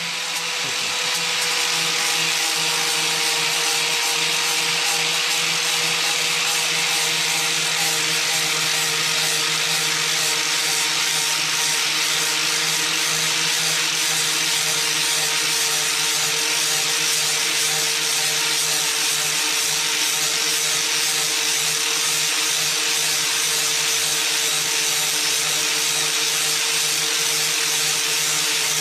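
Power tool grinding rust and buildup off a snowblower's steel auger shaft. It comes up to speed over about the first second, then runs steadily with a constant whine under a harsh abrasive hiss.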